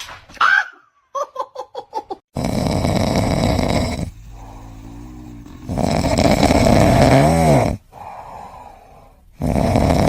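An animal, most likely a dog, snoring loudly in long rasping snores about every three and a half seconds, with quieter wavering breaths between them. Just before the snoring starts there is a quick run of about six short high-pitched sounds.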